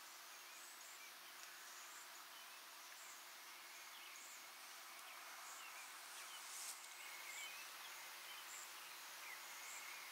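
Faint night insect chorus: a high chirp repeating about once a second over a steady high trill, with one sharp click about two-thirds of the way through.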